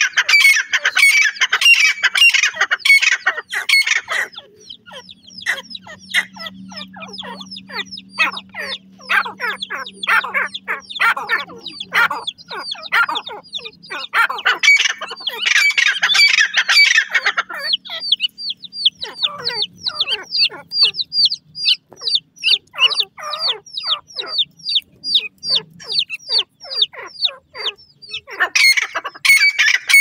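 Grey francolin hen and chick calling: three loud bursts of rapid harsh notes, at the start, midway and at the end, and between them long runs of quick, high, falling peeps.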